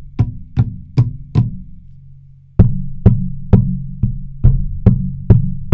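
Bumps to the desk and the boom arm, picked up through a Shure SV100 dynamic microphone in its clip. A run of sharp knocks about two a second, each with a low ringing rumble, breaks off for about a second, then comes back as a second, louder run of knocks.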